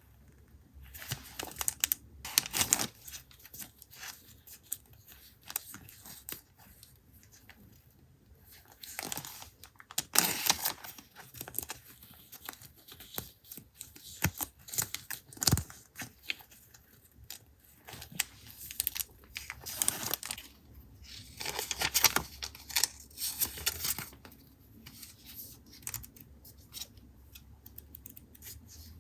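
Hands handling paper and packaging: irregular bursts of rustling, crinkling and tearing, the loudest about ten seconds in and again around twenty to twenty-two seconds.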